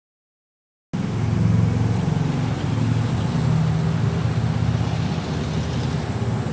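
Steady low, engine-like rumble of a motor vehicle running nearby, starting abruptly about a second in, with a faint steady high hiss above it.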